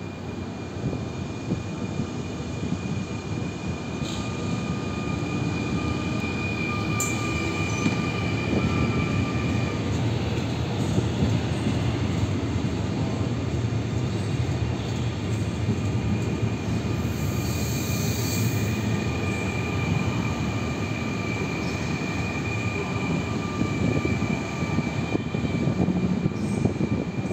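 Comboios de Portugal double-deck electric commuter train running past on the track, a steady rumble of wheels on rails. A thin high whine comes and goes through much of it.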